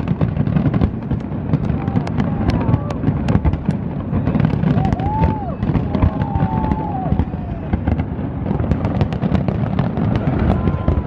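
Dense barrage of aerial fireworks: rapid, overlapping bangs and crackles over a continuous low rumble, with a few rising-and-falling whistles in the middle.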